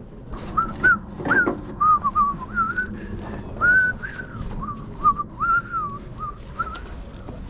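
A person whistling a tune to himself, a string of short gliding notes, with a few light knocks of handling in between.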